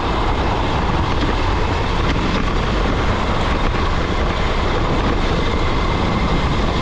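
72-volt electric Razor dirt bike being ridden over snow and ice: a steady rush of riding noise with a heavy low rumble, and a faint steady high whine above it.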